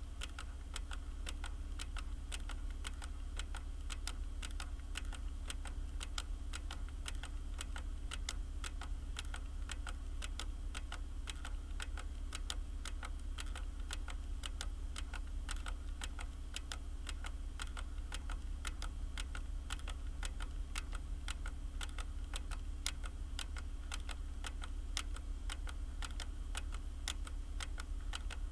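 Keys typed on a computer keyboard, a quick irregular patter of clicks, over a steady low hum.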